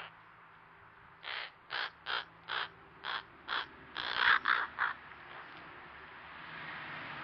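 Crows giving a quick series of about nine short, unusual calls, two or three a second, loudest near the end of the run.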